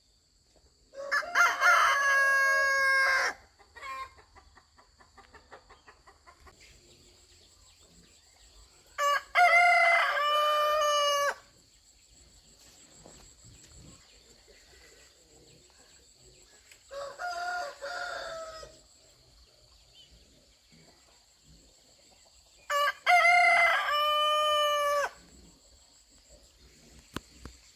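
Rooster crowing four times, each crow about two seconds long and several seconds apart; the third crow is fainter and shorter than the others.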